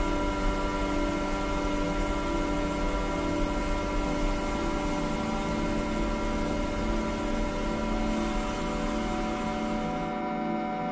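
Droning ambient music: many sustained steady tones layered over a hiss-like noise wash. The noise wash drops away near the end, leaving the held tones.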